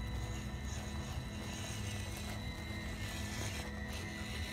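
Small electric 260 brushed motor and gears of a 1:16 scale RC 4x4 truck whining steadily as it crawls over gravel.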